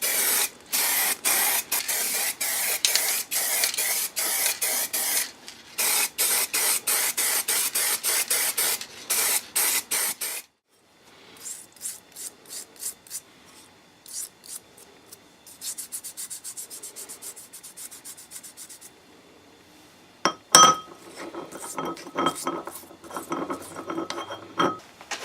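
Abrasive rust-removal work on metal: a loud hissing rasp cut into many short pieces, then quieter rhythmic rubbing or scraping strokes. Near the end comes a sharp knock, followed by a thin, steady squeak.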